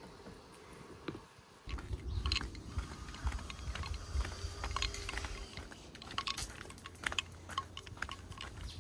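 Quiet room tone at first, then footsteps crunching and clicking irregularly on a gravelly path and boardwalk, over a steady low rumble of wind on the microphone.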